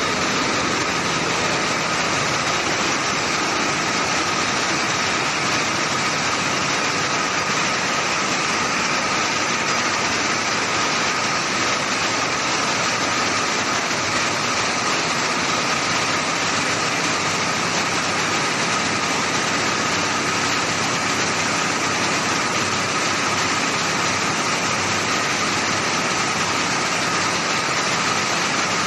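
Fiberglass mesh warp knitting machines running in production: a steady, dense mechanical noise at an even level, with a thin steady whine through it.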